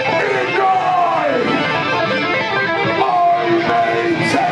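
Punk rock band playing live, electric guitars loud through amplifiers, with notes that slide down in pitch twice.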